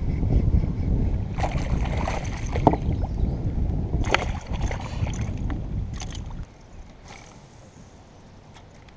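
Wind buffeting the microphone on an open kayak, a dense low rumble broken by a few sharp clicks and rattles; the rumble drops away suddenly about six and a half seconds in.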